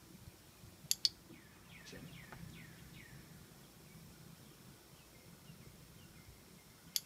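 A dog-training clicker gives a sharp double click about a second in and again near the end, marking the dog holding its chin on the hand. Between the clicks, a wild bird gives a run of about five short falling chirps.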